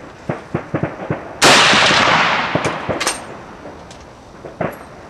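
A single shot from a 7x57 mm Mauser 93/95 bolt-action, about a second and a half in, the loudest thing by far, its report dying away over about a second. It is followed by a few sharp metallic clicks as the bolt is worked.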